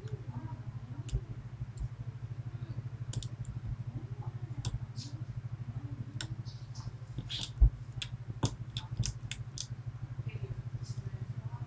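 Scattered small metallic ticks and clicks of a lock pick and tension tool working inside a Medeco Biaxial lock cylinder, with the sharpest click about seven and a half seconds in. A steady low hum runs underneath.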